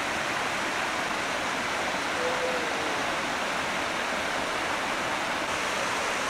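Mountain stream rushing over rocks in small cascades: a steady, even rush of water.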